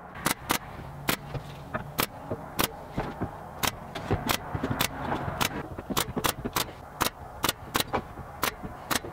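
Pneumatic 23-gauge pin nailer firing pins into wooden tabletop slats: about twenty sharp shots at uneven intervals, two or three a second.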